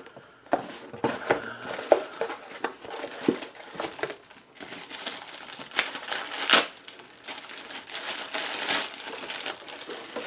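Packaging crinkling and rustling as an item is unwrapped and handled, with irregular crackles and a sharper snap a little past the middle.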